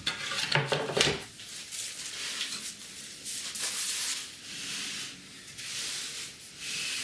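Wooden crosscut sled sliding back and forth over a table saw's metal top, several strokes of rubbing hiss, with a few knocks about a second in. It slides freely, a sign that its runners fit well.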